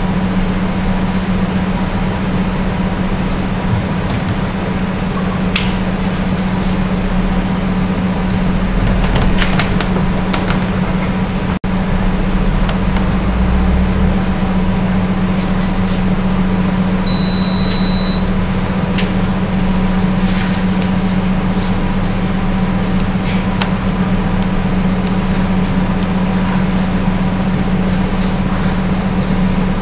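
Steady electrical machine hum from a six-station heat distortion and Vicat softening point tester. A single high electronic beep sounds about 17 seconds in, as its warm-up countdown runs out.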